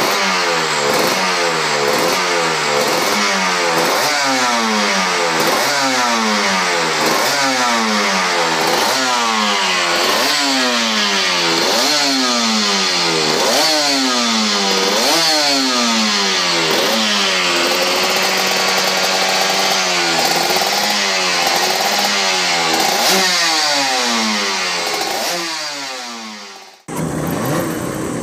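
Aprilia RS250 two-stroke V-twin Grand Prix race bike at full song, its revs climbing and falling again and again with a raspy two-stroke sound. Near the end it cuts off abruptly and a different race engine, the Honda NSR500 two-stroke V4, takes over.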